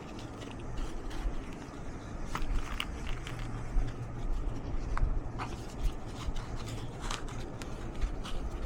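Handling noise: scattered light clicks and scrapes, as of a product and its packaging being handled, over a steady low rumble.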